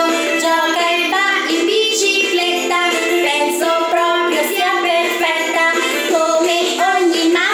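A children's song: a woman and children singing a melody together with music, steady throughout.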